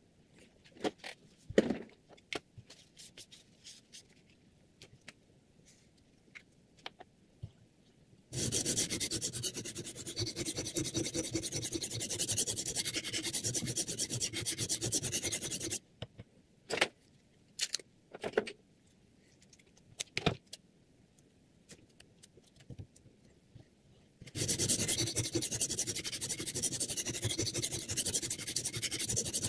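Sharpening stone on the guide rod of a Hapstone R2 guided knife sharpener, rubbed rapidly back and forth along a clamped kitchen knife blade, sped up threefold. The rubbing runs in two long stretches, starting about eight seconds in and again near the end, with scattered clicks and knocks before and between them as the stone holder is handled.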